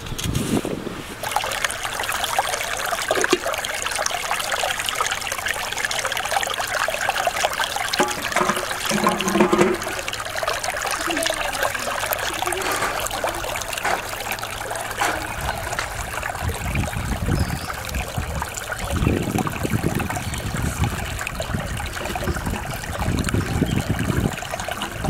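Shallow stream of running water trickling over stones, a steady rush throughout, with a few low bumps in the second half.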